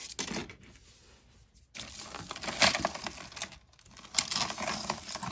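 Tangled costume jewelry being handled and pulled apart: metal chains, beads and coin-style charms clinking and rustling against each other, starting about two seconds in after a quiet start with one small click.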